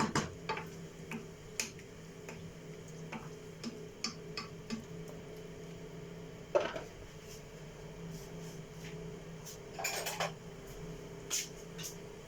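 Scattered clinks and knocks of cooking utensils against pots and dishes: a dozen or so short separate hits, the loudest about two-thirds of the way through and a quick cluster near the end, over a steady low hum.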